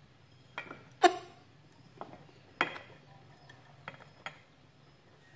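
A handful of light, sharp clicks and clinks, each with a brief metallic ring: a plug's metal pins and wire ends tapping against and pushing into a power-strip socket.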